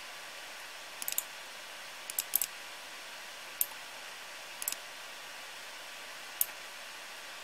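Computer mouse clicking: short, sharp clicks in small groups and singles, a few seconds apart, over a steady hiss.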